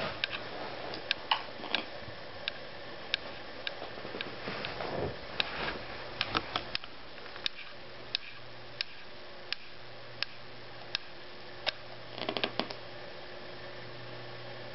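A boxer dog grinding his teeth: sharp clicks and scrapes of tooth on tooth, irregular at first, then settling to a little faster than one a second, and ending in a quick run of clicks. The grinding was the sign of dental problems from the breed's jaw conformation that needed extractions and a cyst removed.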